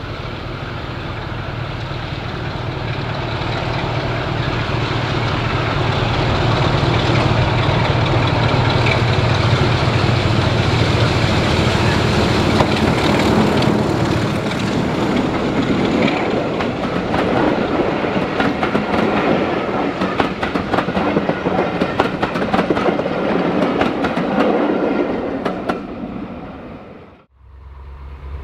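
Heritage diesel locomotive hauling a train past: its engine note swells over the first few seconds, then the wheels clatter over the rail joints as the train goes by. The sound fades and cuts off suddenly near the end.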